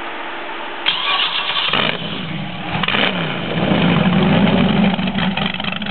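Freshly built LS7 7.0-litre V8 from a 2012 Corvette Z06, balanced and blueprinted with forged pistons and a performance cam, being started on an engine run stand: the starter cranks about a second in, the engine catches with a flare near three seconds, then settles into a steady idle.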